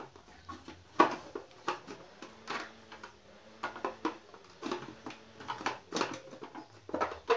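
Plastic top cover of a Singer sewing machine being handled and pressed into place by hand, giving a string of irregular light clicks and knocks.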